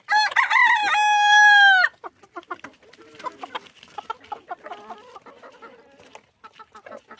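A young Fayoumi cockerel crows once for about two seconds, the call dropping in pitch at the end, then a flock of Fayoumi chickens clucks with short, quieter repeated calls.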